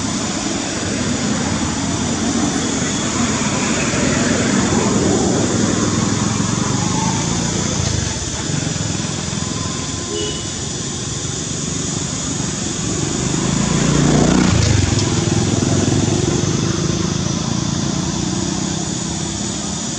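Motor vehicles passing on a nearby road, over a steady background hum. The engine noise swells as one vehicle goes by about four seconds in, and again as another goes by about fourteen seconds in.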